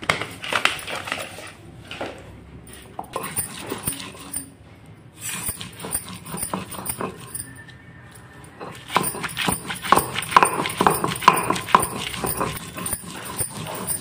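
Stone pestle rolled and scraped back and forth over a flat stone grinding slab (sil-batta), crushing wet coriander and garlic leaves into chutney: gritty scraping and knocking strokes. The strokes pause briefly near the middle and come thickest in the last few seconds.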